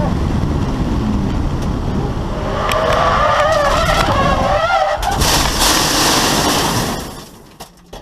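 BMW E21's swapped-in M50B25 straight-six running as the car goes into a corner, then the tyres squeal with a wavering pitch about two and a half seconds in as the car skids. A loud rushing hiss follows as it slides off the track onto dirt, and the noise dies away sharply at about seven seconds as the car comes to rest. The uploader puts the crash down to overheated brake fluid.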